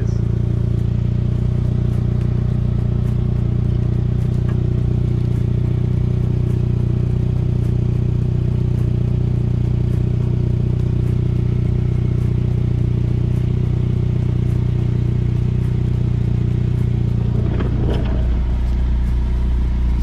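2002 Saab 9-3 engine idling steadily, heard from underneath at the exhaust, running solid and quiet: the patch on the rusted-through center exhaust pipe is holding, with no exhaust heard escaping. The drone shifts lower near the end.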